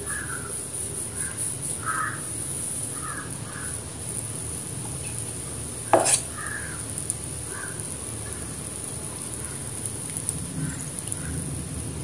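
Short bird calls repeating every second or so, over a steady faint high hiss, with one sharp click about six seconds in.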